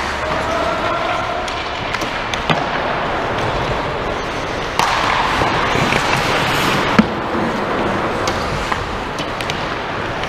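Pickup ice hockey: skate blades scraping and carving the ice, with sharp clacks of sticks and puck now and then. A louder stretch of scraping comes about five seconds in, ending in the loudest clack about seven seconds in.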